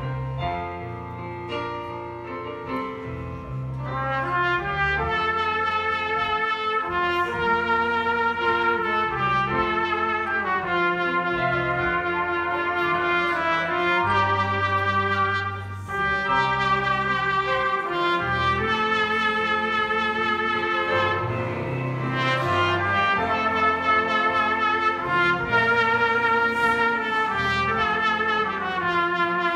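Trumpet playing a hymn melody as a solo over keyboard accompaniment, with a short break about halfway through.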